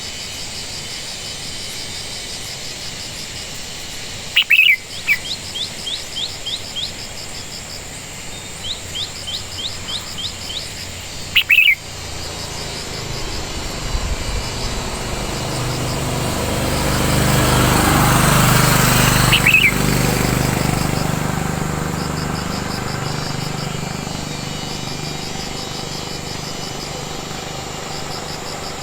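Wild birds calling: two loud short calls about seven seconds apart, with runs of about six quick rising chirps between them, over steady insect chirping. In the second half an engine sound swells and then fades, loudest about two-thirds of the way in.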